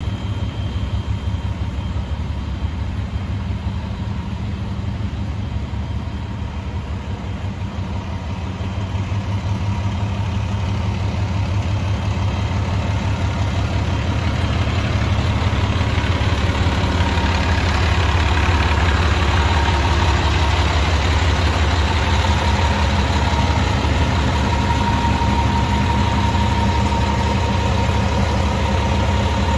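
Fire engine's diesel engine idling steadily, with a faint steady whine above the hum; it grows louder over a few seconds from about ten seconds in and then holds.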